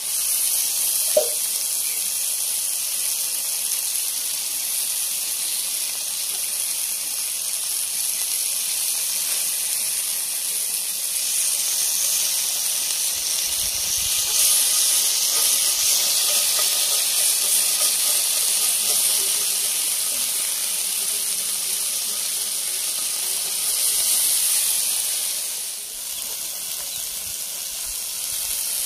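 Chicken pieces sizzling in hot oil in a cast-iron skillet, a steady hiss that swells louder twice. A single short sharp click about a second in.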